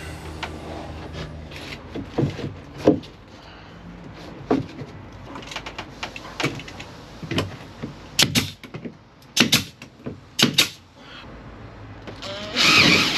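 Pneumatic nail gun firing nails through shiplap boards into the wooden wall framing: a dozen or so sharp shots at irregular intervals, several in quick pairs. Near the end a cordless drill runs briefly.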